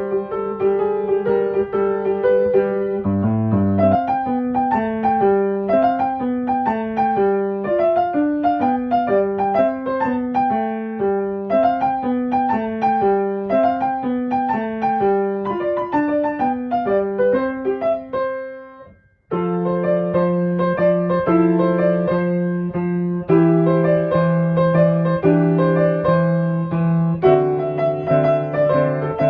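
Background piano music: runs of single notes, then after a brief pause about 19 seconds in, a new section of repeated chords.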